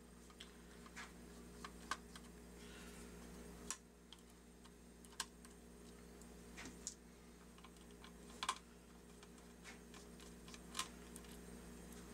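Faint, irregular light clicks and taps of a small screwdriver backing screws out of a plastic gearbox housing. The sharpest click comes about eight and a half seconds in, over a steady low hum.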